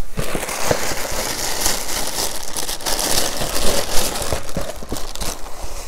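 Plastic inner bag of a cereal box crinkling as it is handled and pulled open, a continuous dense crackle with a few sharp clicks.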